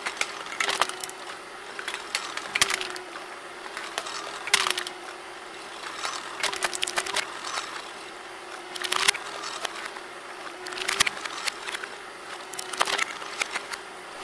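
Homemade crank-and-piston can crusher, built on a converted meat slicer, flattening aluminium drink cans one after another. There are seven crunches of crumpling metal, one about every two seconds, each with a short squeak.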